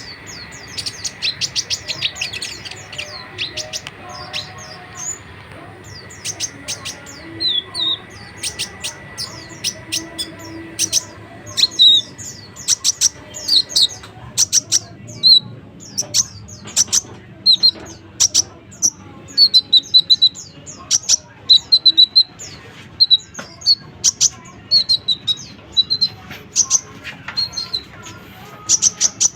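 A konin songbird calling busily: a long run of sharp high chirps and short trills, several a second, in full lively voice (gacor). A faint steady high tone sits under the first half and stops about halfway.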